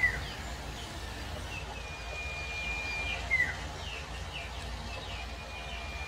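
A small songbird (Indonesian 'sirtu') singing: long level whistles broken by sharp falling chirps, the loudest right at the start and about three seconds in, with quick short down-slurred notes between, over a steady low rumble.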